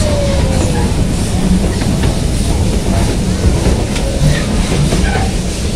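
Running noise of the Puffing Billy narrow-gauge steam train heard from its open-sided carriage: a loud, steady rumble of the wheels and running gear on the rails.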